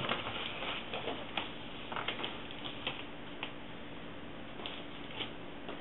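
Light, scattered clicks and rustles of cardboard and packaging being handled inside an opened shipping box, a few sharp ticks spread irregularly over the stretch.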